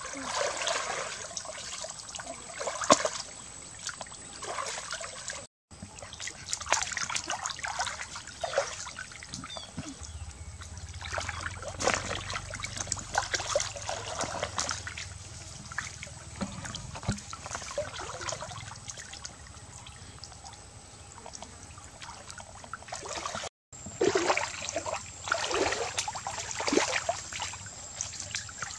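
Shallow pond water splashing and trickling as hands rummage under the surface and lift snails out, water running off the hands and arms in irregular splashes and drips.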